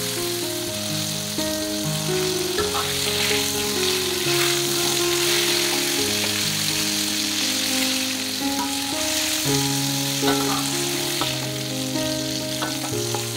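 Flour-battered shrimp sizzling as they deep-fry in hot oil in a wok, with a few clinks of a metal spatula against the pan. Soft background music with gently changing notes plays along.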